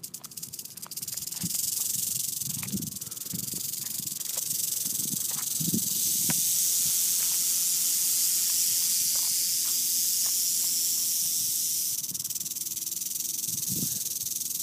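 Red diamond rattlesnake shaking its tail rattle, a defensive warning. It starts as fast separate clicks and builds within about two seconds into a steady high buzz that holds on.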